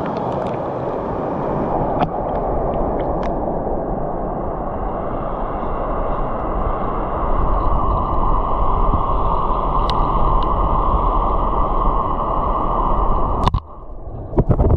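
Steady rush of flowing stream water. Near the end it drops off abruptly, followed by a few knocks.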